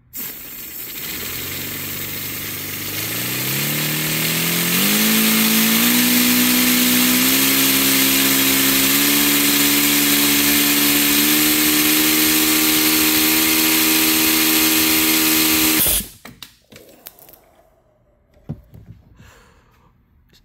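Paper radial four-cylinder engine driven by compressed air from an air compressor's blow gun: a loud rush of air, with a whine that climbs in pitch for a few seconds as the engine spins up, then holds a steady high-speed pitch. The sound cuts off suddenly about three-quarters of the way through.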